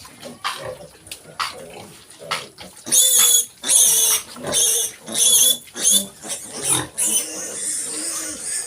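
Pigs grunting softly, then piglets squealing loudly in a run of shrill cries from about three seconds in.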